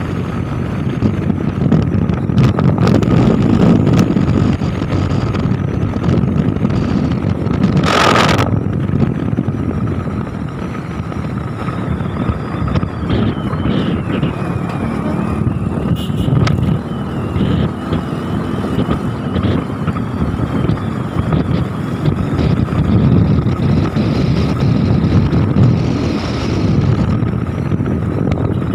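Motorcycle engine running at road speed with wind rushing over the microphone while riding, plus one short loud burst about eight seconds in.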